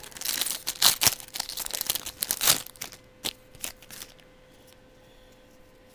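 A trading-card pack's foil wrapper being torn open and crinkled for about two and a half seconds, followed by a few light clicks of the cards being handled.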